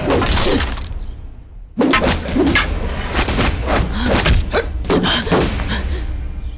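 Dubbed kung-fu fight sound effects: a rapid run of wooden-staff strikes, thuds and whooshes, with short grunts of effort. The strikes stop briefly about a second in, then start again suddenly.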